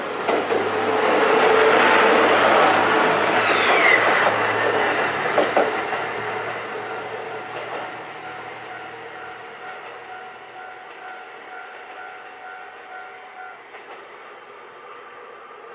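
KiHa 127 diesel railcar passing close by: its engine drone and wheel noise are loudest in the first few seconds, with a few sharp clacks from the wheels over the rail joints, then fade steadily as it moves away. The crossing's warning bell rings on in a repeating pattern and stops near the end.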